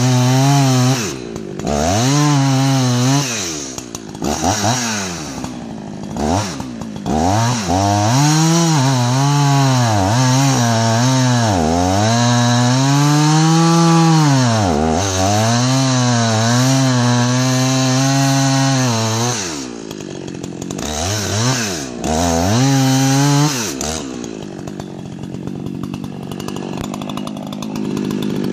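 Two-stroke chainsaw cutting into a large dead ponderosa pine, its engine pitch rising and sagging again and again as the chain loads and unloads in the cut. About four seconds before the end it drops back to a low, steady idle.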